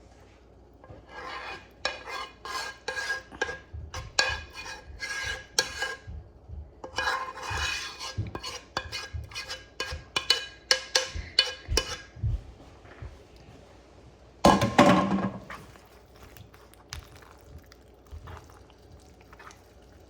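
A metal utensil stirring, scraping and clinking against a pot in quick runs of sharp strokes with a faint ring, then one louder, heavier clatter about three-quarters through.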